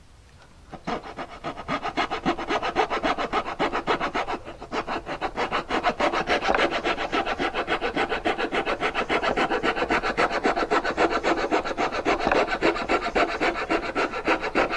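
Coping saw cutting along the molded profile of a piece of base trim to cope an inside corner: quick, even rasping strokes, about four a second. They start about a second in and break off briefly around four seconds in.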